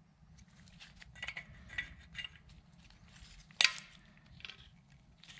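Light metallic clicks and scrapes of a main bearing shell being handled and pressed into a main saddle of a Ford 289 engine block, with one sharper click about three and a half seconds in.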